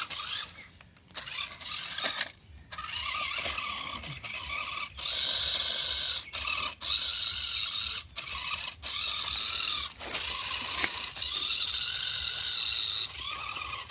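Toy RC monster truck's small electric motor and gears whining in repeated bursts, the pitch rising and falling with the throttle and cutting out briefly between bursts, as the tyres scrabble over dry leaves and stones.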